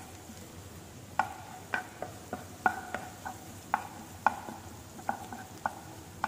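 Chopped onion frying in butter in a nonstick frying pan with a faint sizzle, as a spatula stirs it and taps against the pan again and again, each tap ringing briefly. The onion is being softened until translucent.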